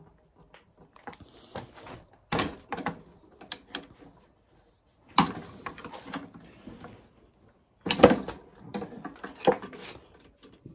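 Metal spanner clicking and clanking against bolts and the metal control-lever panel of a mini excavator as the bolts are worked loose, in irregular clicks with several louder knocks.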